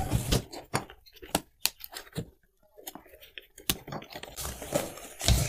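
Cardboard shipping box and its paper label being torn and pulled open by hand: a run of irregular rips, crackles and scrapes, with a short pause near the middle.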